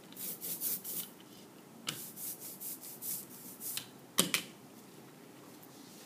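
Hand brayer rolled back and forth through black printing ink in quick strokes, giving a sticky, crackling hiss. About four seconds in come two sharp knocks close together as a tool or the foam plate is set down on the table.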